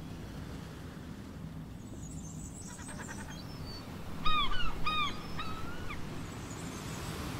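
Outdoor ambience with a steady low hum. About two seconds in there are faint high chirps, then about four seconds in a bird gives a quick run of about four short, clear calls, the loudest sound.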